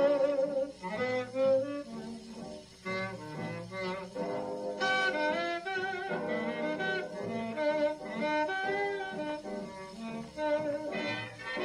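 Tenor saxophone solo over a swing big band's rhythm section, played from a 1940 78 rpm shellac record; the full ensemble comes back in near the end.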